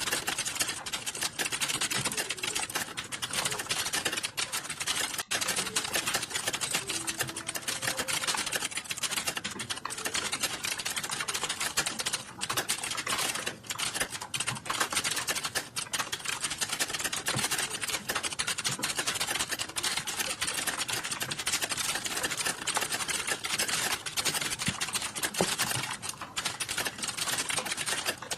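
Computer keyboard typed on fast and continuously: a dense, rapid stream of key clicks with only brief pauses.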